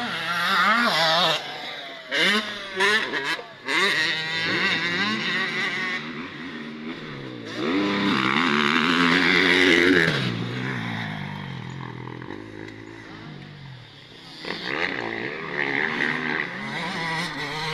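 A vehicle engine being revved up and down repeatedly, with a few short sharp blips early on, a long rev that peaks about halfway through, then dropping back and rising again near the end.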